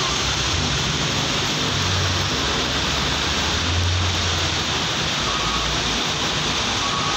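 Steady hiss of rain and wet-road noise, with the low engine rumble of a heavy container truck that swells twice as it pulls across.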